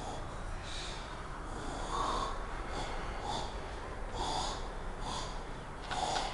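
A person playing a zombie breathing heavily close to the microphone, several breaths roughly a second apart, over a low steady hum.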